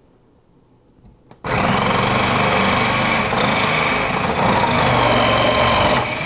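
Food processor motor switched on, running steadily as its shredding disc grates whole carrots pushed down the feed tube. It starts abruptly about a second and a half in, just after a faint click.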